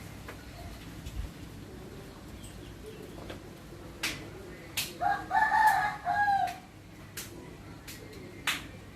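A rooster crowing once, about five seconds in and lasting about a second and a half, over the steady rumble of strong wind, with a few sharp clicks.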